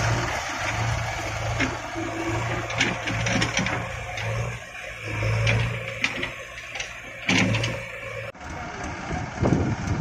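Diesel tractor engine running, its low hum coming and going, with scattered knocks and rattles; the sound changes abruptly a little past eight seconds.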